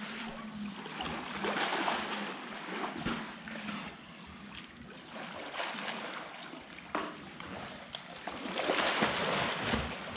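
Water splashing and sloshing in a sea lion pool, swelling into two louder rushes of splashing, about one and a half seconds in and again near the end.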